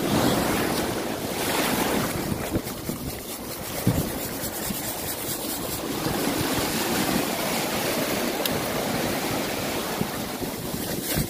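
Shallow surf washing up and back over the sand around a sand flea rake being worked through the wash, with wind on the microphone. A single sharp knock about four seconds in.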